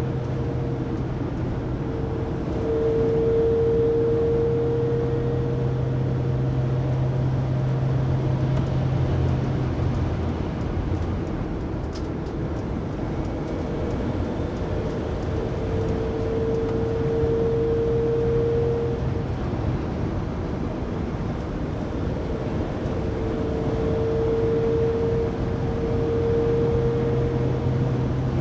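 A steady, high drivetrain whine from a 2019 Mercedes Sprinter 3500XD camper van, heard inside the cabin at 80-90 km/h over road rumble. The whine swells and fades several times. The noise remains after the differential and drive shaft were replaced, so its cause is still unknown.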